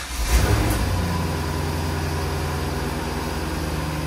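Corvette C5 Z06's LS6 V8 just after starting: the revs flare briefly in the first second, then settle into a steady idle.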